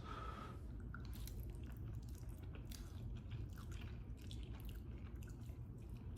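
A person chewing wet chicken noodles close to the microphone: a run of short, irregular mouth smacks and clicks.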